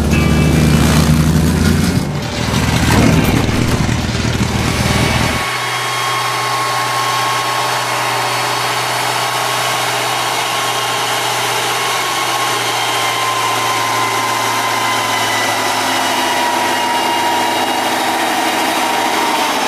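Tatra 813 8x8 trial truck's diesel engine running steadily, with a steady whine over the engine note that sags slightly near the end. It is preceded by a louder rumbling sound that cuts off abruptly about five seconds in.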